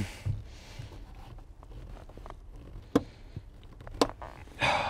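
Sharp clicks about a third of a second in, at three seconds and at four seconds, as hands handle wiring and plastic parts up behind a car's dashboard. A heavy breath out comes near the end.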